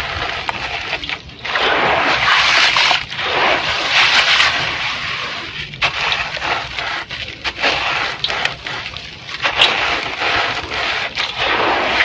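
Chunks of red gritty sand-cement crumbling in water: irregular bursts of crackling, gritty crunching and scraping, with sharp clicks between them.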